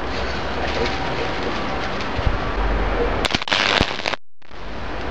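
Circuit board burning out on 240-volt mains: under a steady hiss, sharp pops and a burst of crackling arcing about three seconds in, stopping abruptly.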